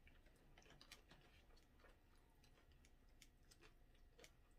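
Near silence with faint, irregular clicks of a plastic fork digging into nachos in an aluminium foil pan.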